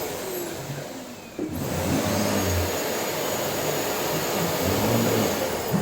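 Vacuum cleaner running: a steady rushing noise with a thin high whine, louder from about a second and a half in.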